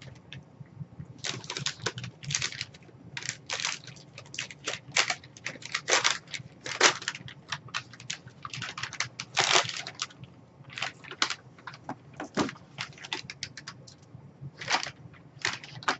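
Brown kraft paper bag rustling and crinkling in irregular bursts as it is handled and opened.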